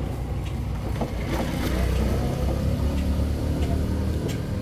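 Motor scooter engine running on the street, its pitch rising and falling from about a second in as it passes, over a steady low engine hum.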